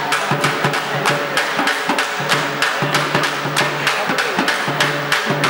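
Drum music with quick, even beats, about five a second.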